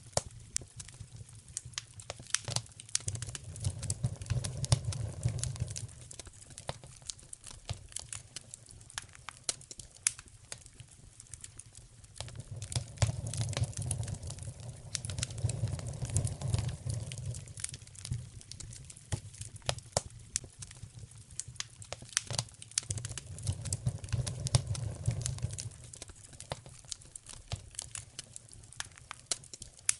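Wood fire crackling in a fireplace: a steady stream of sharp pops and snaps, under a low rumble that swells and fades three times.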